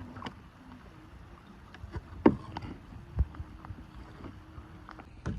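Kayak paddling: paddle blades splashing in the water, with a few sharp knocks, the loudest about two seconds in.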